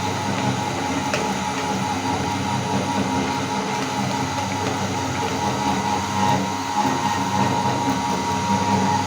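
Electric meat grinder running steadily as it grinds chocolate bars: a constant motor hum with a whine in it.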